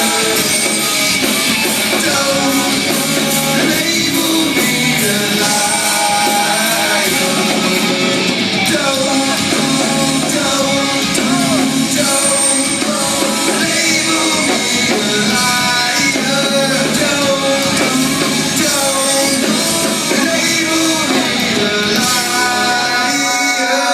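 Rock song with a singer and electric guitar band, playing loud and steady throughout.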